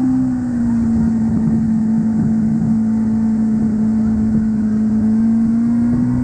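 Motorboat engine running steadily under way, its pitch easing down slightly about half a second in and rising again near the end, with rushing wind and water noise.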